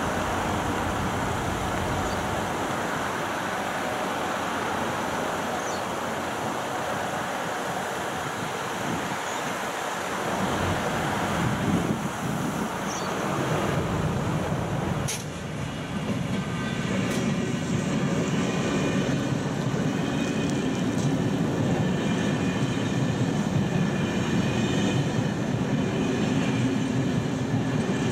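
Freight train hauled by an Sr1 electric locomotive approaching and passing a level crossing. The rumble builds from about halfway in and turns into a heavy, steady rail noise as the locomotive and wagons run past, with high ringing tones over it.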